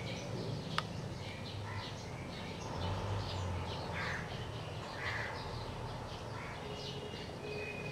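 Birds calling repeatedly in short, scattered calls, over a low steady rumble.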